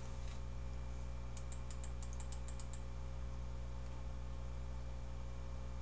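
A quick run of about nine light computer keyboard key clicks, from about a second and a half in to near the three-second mark, over a steady low hum.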